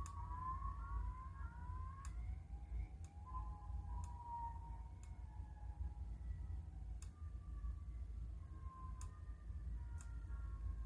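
Recorded tornado warning sirens played through a small speaker: several siren tones overlapping, each slowly rising and falling in pitch. Occasional sharp ticks are heard over them.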